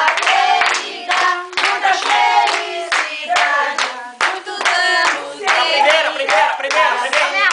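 A group of people singing a birthday song together, with steady rhythmic hand-clapping at about two claps a second.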